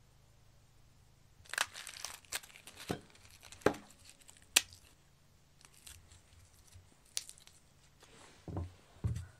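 Hands breaking apart and peeling a head of garlic: the dry papery skins crackle and tear, with a few sharp snaps, starting about a second and a half in. Two soft thumps come near the end.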